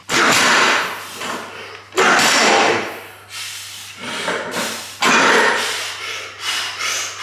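A lifter's heavy, forceful breaths, three sharp rushes about two to three seconds apart, each fading away: bracing and psyching up over a loaded elephant deadlift bar before the pull.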